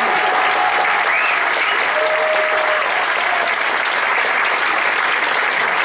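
Sustained applause from the theatre audience and the cast, a dense, steady clapping.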